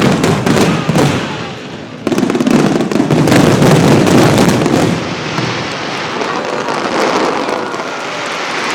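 Fireworks going off in a rapid barrage of bangs and crackles. It is densest from about two to five seconds in, then thins to a fading crackle.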